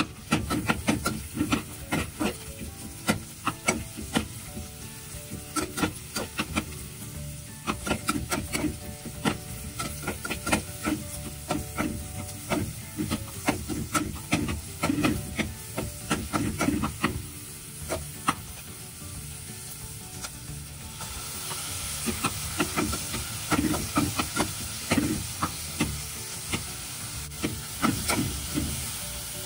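A metal spoon stirring chopped onions in an aluminium pot, with many quick clicks and scrapes against the pot over the sizzle of frying. About two-thirds of the way through the sizzling grows into a louder, steady hiss.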